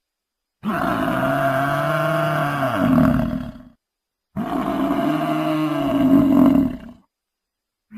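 Dinosaur roar sound effect heard twice, two nearly identical long roars of about three seconds each with a short silence between them.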